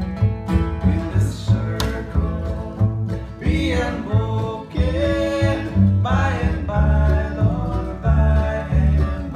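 Live acoustic bluegrass band playing: a man sings over a strummed steel-string acoustic guitar, with an upright bass thumping out a steady bass line. The singing comes in most strongly in the middle.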